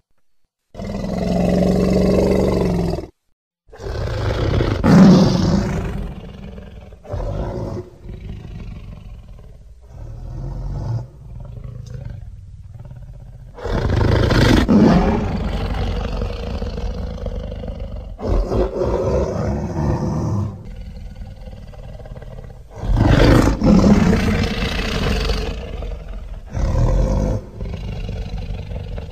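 Designed dinosaur sound effect for Sauroniops pachytholus: a string of deep roars and growls, several of them long, separated by short breaks, with a brief full stop about three seconds in.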